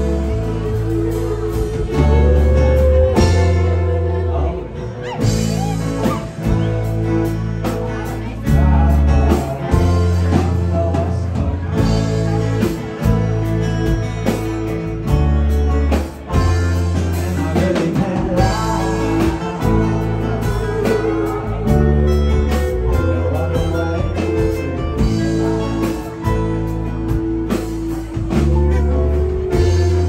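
Live band playing a song: strummed acoustic guitars, bass, drums and keyboard, with a lead voice and backing harmonies singing. A bass line moves under a steady drum beat.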